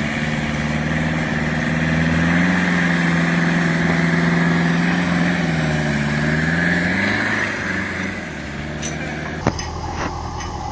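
Four-cylinder Ford Sierra 1.8 turbodiesel engine of a homemade off-road truck working under load in deep snow. Its pitch rises about two seconds in, holds, then falls away around seven seconds.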